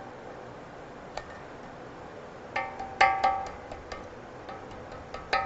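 Screwdriver working a retaining snap ring into its groove in the bore of a 42RLE transmission's aluminium case, over the low/reverse accumulator cover: sharp metal clicks and clinks with a short ringing. They come as a single click, then a quick cluster about two and a half to three and a half seconds in, and another click near the end.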